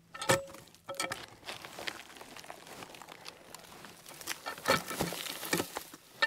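A steel cant hook knocks into a log with a short metallic ring, then the log is levered and rolled off a pile, bark and debris crackling and crunching with irregular knocks. The bark is loose and crumbling off the old log.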